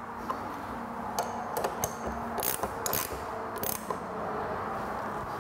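A 17 mm wrench tightening a mirror-mount nut on a scooter, giving a scattering of sharp metal clicks at irregular intervals. This is the final tightening of the mirrors that hold the windshield brackets.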